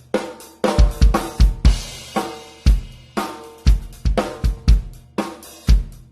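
Drum kit groove played on bass drum, snare and 14-inch Meinl Soundcaster Custom hi-hats, in a steady beat of sharp strikes. A longer cymbal wash rings about two seconds in.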